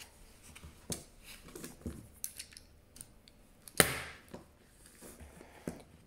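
Scattered light clicks and knocks of small plastic fidget toys being handled and set down on a table, with one sharper knock about four seconds in.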